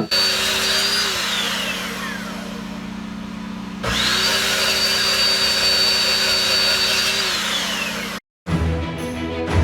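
Power saw cutting steel clamp stock. The motor starts with a steady high whine, is let off about a second in and winds down in falling pitch, then starts again about four seconds in and runs steadily before winding down again near the end.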